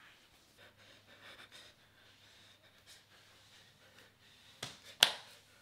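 Quiet room tone with a faint low hum, then two sharp clicks near the end, the second much louder.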